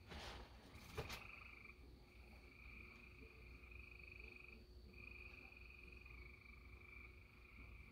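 Faint frog chorus: long trills follow one another, each lasting a second or two. There is a short rustle at the very start and a single click about a second in.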